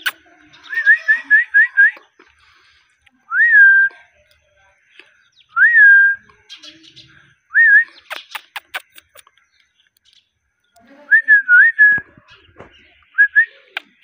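Indian ringneck parakeet whistling: a quick run of five short rising notes, then single clear whistles a few seconds apart that rise and hold. Sharp clicks fall between the whistles.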